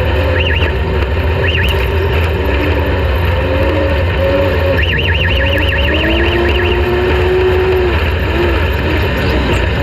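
Off-road race vehicle's engine running hard over a heavy low rumble, its revs rising and falling repeatedly. A short high warbling squeal comes twice early on and runs longer about five seconds in.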